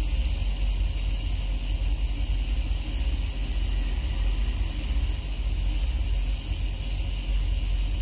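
Compressor nebulizer running with a steady, unbroken low drone.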